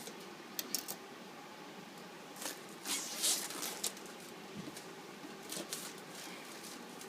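Packaging being handled as an iPad mini box is opened: a few small clicks, then a stretch of crinkling and rustling, with fainter rustles later.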